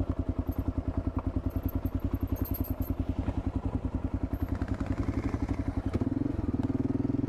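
Single-cylinder 650 dual-sport motorcycle engine chugging along at low revs in an even, rapid beat. About six seconds in, the revs pick up and the note turns smoother.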